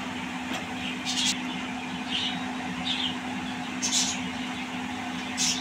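Gulab jamun dough balls deep-frying in hot oil, a steady sizzle, with about five brief louder crackles as they are stirred and turned with a silicone spatula. A low steady hum runs underneath.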